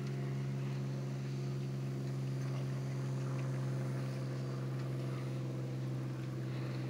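Steady, unchanging drone of an engine idling at a constant speed.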